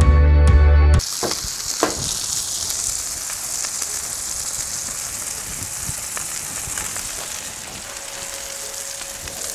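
Background music for about the first second, cutting off abruptly. Then buttered buns and beef smash-burger patties sizzle steadily on a Blackstone flat-top griddle, with a few light clicks just after the music stops.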